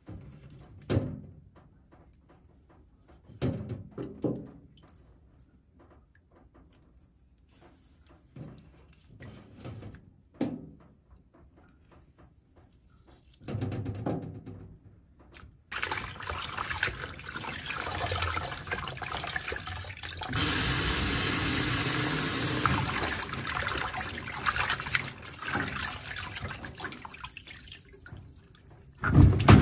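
Drips and small wet handling sounds as butterbur stalks are peeled over a plastic colander. About halfway through, a kitchen tap starts running into the sink and the leaves are rinsed under it; the flow is loudest for a couple of seconds.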